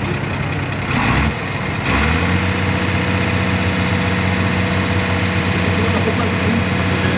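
An Iveco trial truck's diesel engine working in deep mud: a brief surge about a second in, a short dip, then it revs up and holds a steady, higher engine speed under load.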